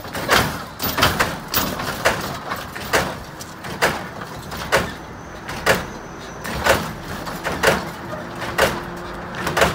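Lowrider's hydraulic suspension hopping the car, with sharp metallic bangs as it slams up and down: a few close together at first, then a steady rhythm of about one a second.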